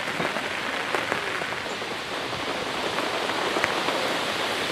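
Steady rain falling on wet ground, a constant hiss with a few sharper drips ticking through it.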